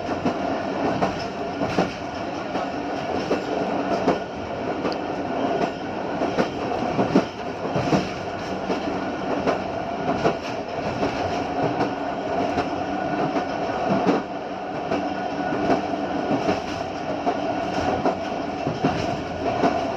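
Wheels of a passenger train's last coach running along the track: a steady rumble broken by sharp clacks every second or two.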